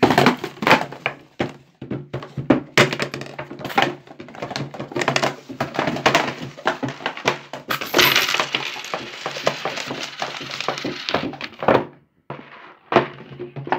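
Small objects being knocked over and tumbling, a rapid run of clattering knocks and clinks, with a denser scraping, rustling stretch about eight seconds in; it breaks off briefly near the end before a few more knocks. The sounds of a shop's goods being thrown about and left in a mess.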